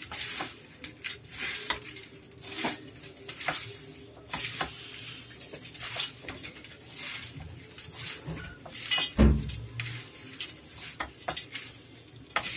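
Hands mixing crushed papdi and chopped vegetables in a steel plate: irregular crackling rustles of the crisp pieces and scraping on the metal. A single louder thud about nine seconds in.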